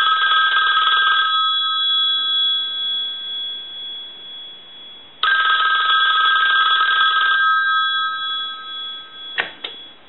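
Western Electric 500 rotary desk telephone's mechanical two-gong bell ringing on the line analyzer's ring signal, in two bursts of about two seconds with the gongs' ring fading away after each. The bell circuit has just been repaired and the bells adjusted for the most sensitivity. A couple of clicks near the end.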